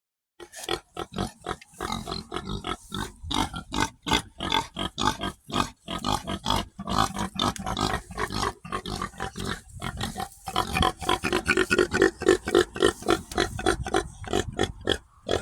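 Domestic pig grunting and oinking in a rapid run of short calls, getting louder in the last few seconds.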